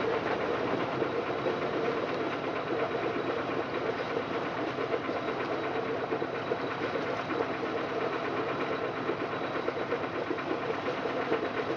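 Small motor boat's engine running with a steady, unchanging drone, heard from on board.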